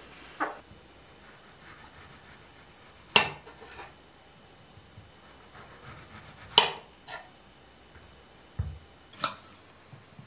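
Kitchen knife cutting lemons on a wooden cutting board: half a dozen sharp knocks as the blade strikes the board, the two loudest about three and a half seconds apart, with soft rubbing between and one dull thump near the end.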